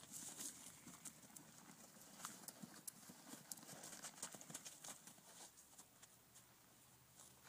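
Faint hoofbeats of a horse loping on a dirt arena, thinning out and growing quieter about five and a half seconds in.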